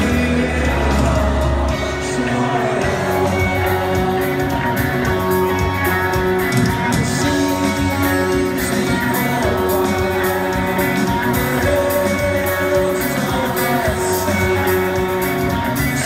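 Live rock band playing in a large arena, with guitar, bass, drums and singing. Recorded from the stands on a phone. A deep bass note drops away about two seconds in.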